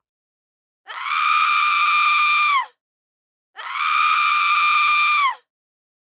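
Two shrill human screams, each held at a steady high pitch for about two seconds and falling off at the end, with a short silence between them.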